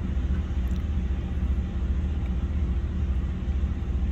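Steady low rumble of an idling car engine, even and unchanging throughout.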